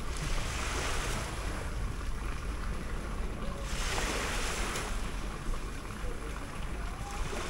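Small waves washing onto the beach, swelling twice, about half a second in and again around four seconds in, with wind rumbling on the microphone.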